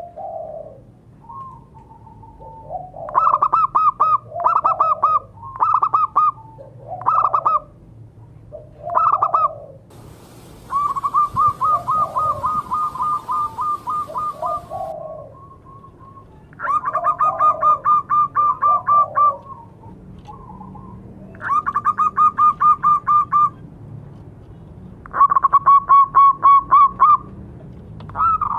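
Zebra dove (perkutut) calling with its typical phrases of quick, rapidly repeated cooing notes. Several short phrases come first, then longer runs of two to four seconds, with softer, lower coos between them.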